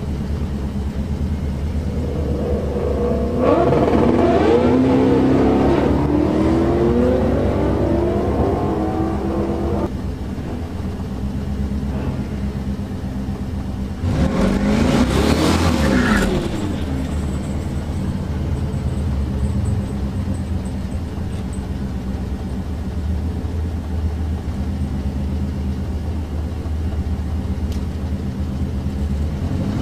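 Turbocharged 4.8 L LS V8 idling steadily, heard from inside the car's cabin, while other drag cars rev nearby: a wavering revving from about 3 to 10 seconds in, and a louder rev that rises and falls around the middle.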